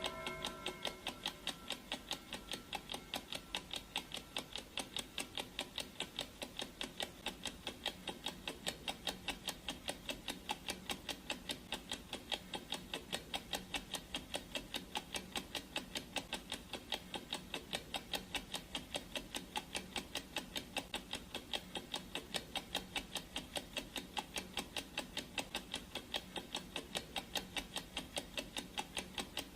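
Clock-ticking sound effect: steady, even ticks several times a second. The ring of a timer gong fades out in the first moment.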